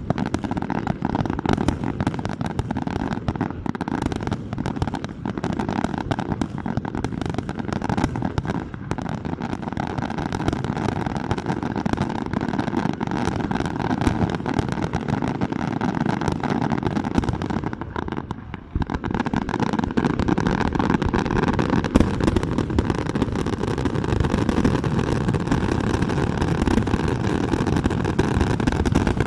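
Fireworks display going off continuously: a dense rumble of bursts with rapid crackling. It drops out briefly about two-thirds of the way through, then a steadier rumble carries on.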